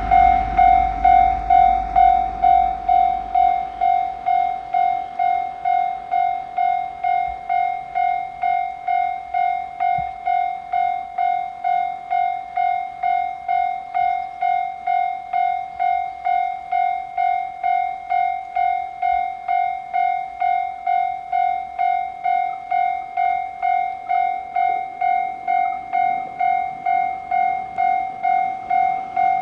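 Japanese level-crossing warning bell ringing steadily at about two strikes a second. A train's low rumble fades away in the first few seconds.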